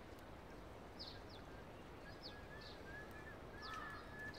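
Small birds calling in the morning quiet: short high chirps repeated every second or so, with a few thin whistled notes in the later part, over a faint steady outdoor hiss.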